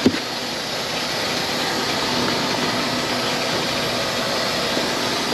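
Large delivery truck idling, a steady engine drone with a hiss over it. A single short knock sounds right at the start.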